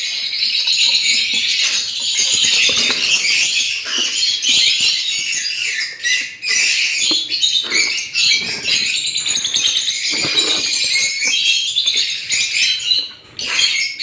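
Many lovebirds chattering at once, a dense high-pitched chirping with no break except brief lulls about six seconds in and just before the end.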